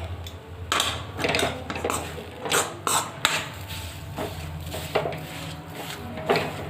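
A spoon stirring and scraping a gram-flour and pea mixture in a kadhai, with irregular knocks against the pan every half-second to a second, over a low steady hum.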